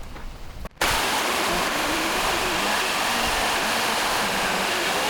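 Power saw cutting through a wooden log, a loud steady rush of noise with a faint wavering whine beneath it, starting abruptly about a second in.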